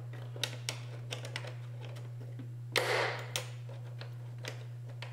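Plastic air cleaner box being fitted together and its clips snapped shut: scattered sharp clicks and taps, with a brief scraping rush about three seconds in. A steady low hum runs underneath.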